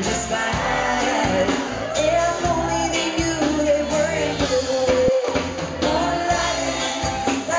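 Live band playing a pop-rock song: a woman singing lead over electric guitar, keyboards and a drum kit keeping a steady beat.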